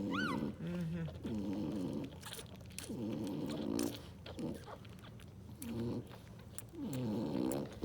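Newborn puppies grunting and squeaking while they nurse on their mother, with a short high squeal near the start and scattered small clicks.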